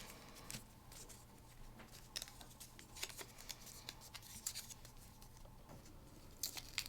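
Faint handling of the battery charger kit's plastic packaging: scattered light clicks and scratches as the pieces are worked free.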